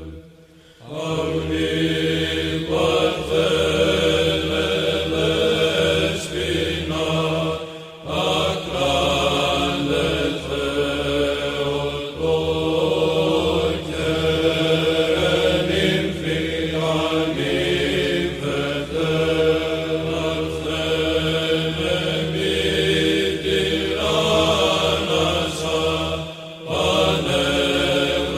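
Greek Orthodox Byzantine chant: a long, drawn-out sung line over a steady held drone (the ison), pausing briefly about a second in, again near eight seconds, and shortly before the end.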